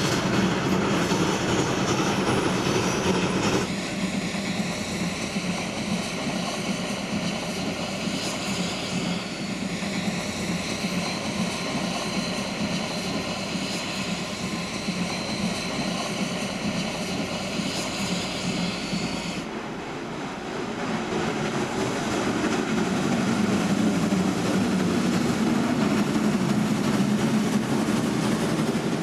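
Steam locomotive SZ 33-037, a German class 52 2-10-0 built by Henschel in 1944, working hard as it hauls its passenger train, its exhaust heard as a continuous rush. The sound shifts abruptly twice.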